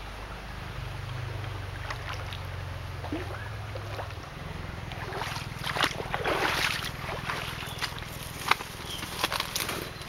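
Steady low rumble of wind on the microphone. Over the second half comes rustling and sharp crackles of steps through leaf litter and undergrowth, densest about six to seven seconds in, with single twig-like cracks near the end.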